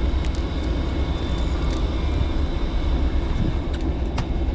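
Steady low rumble and hiss on a fishing boat at sea, with a thin high whine and a few faint clicks near the end.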